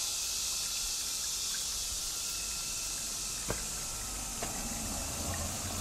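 Mountain spring water trickling and splashing down a rock face: a steady, even hiss.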